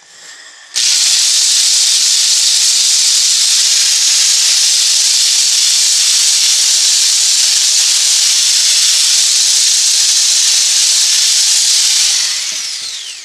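Genesis right-angle drill spinning a finer-grit sanding pad against a cedar board: a loud, steady hiss that starts suddenly about a second in. Near the end the trigger is let go and the motor winds down with a falling whine.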